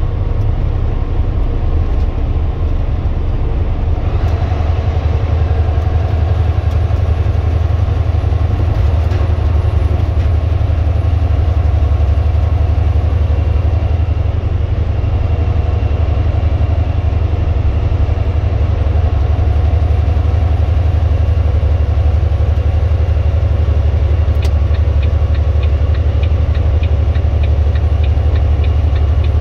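Steady low engine and road rumble inside the cab of a large truck cruising on a highway. A faint regular ticking comes in near the end.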